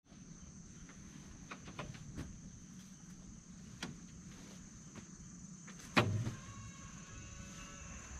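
Cloth net being handled and tucked in on a bamboo slat floor: light rustling and scattered clicks, with one louder knock about six seconds in. A steady high-pitched whine runs underneath.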